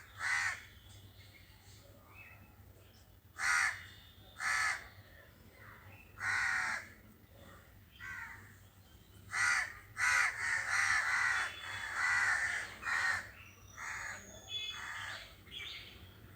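Crows cawing: harsh calls spaced a second or more apart at first, then a quick run of calls one after another from about ten to thirteen seconds in, with a few shorter, fainter caws near the end.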